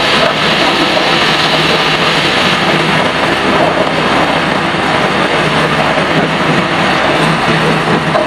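Woodworking machine running steadily as it cuts a wooden charpai leg: a loud, continuous mechanical noise with a constant low hum underneath.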